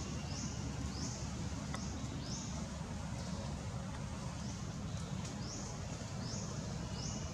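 Forest ambience: a short, high-pitched rising call repeats about every two-thirds of a second, pausing for a moment midway, over a steady low rumble.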